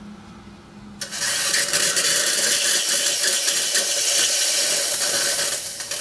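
Steam wand of a Lelit PL41TEM single-boiler espresso machine opened about a second in: a loud, steady hiss of steam blowing out, purging the wand, dying down near the end as the knob is closed.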